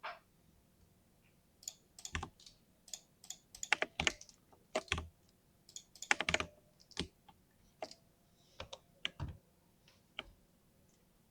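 Mechanical keyboard with lubed linear switches being typed on in short irregular bursts of keystrokes, with brief pauses between bursts.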